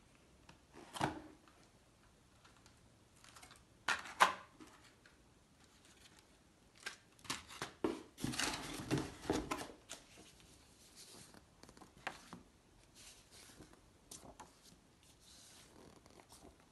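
Packaging being handled: clear plastic blister trays of model parts clicking and crinkling, with cardboard and paper rustling. Scattered sharp clicks, the loudest about four seconds in, then a longer spell of rustling and crackling about eight seconds in, fading to faint rustles.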